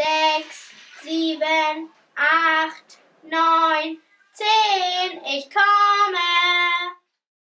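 A child's voice singing slow, drawn-out notes in six short phrases, the last two longer and higher, stopping suddenly near the end.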